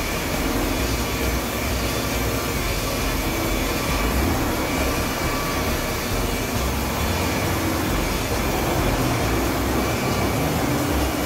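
Electric rotary car polisher running steadily, its buffing pad working over car paint, with a faint steady whine.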